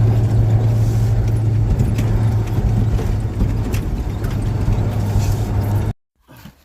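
Engine of a military Ural truck running steadily as it drives, a loud low drone. The sound cuts off abruptly about six seconds in, leaving only a few faint clicks.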